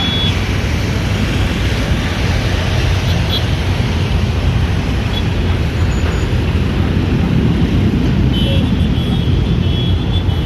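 Airbus A330-300's jet engines at takeoff power, a loud, steady low rumble.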